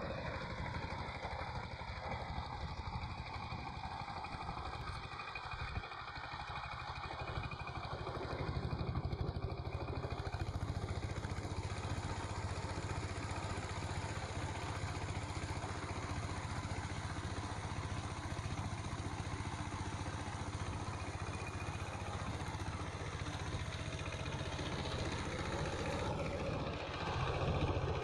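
Power tiller's single-cylinder diesel engine running steadily under load, with a fast, even chugging, as its rotary tiller works dry soil.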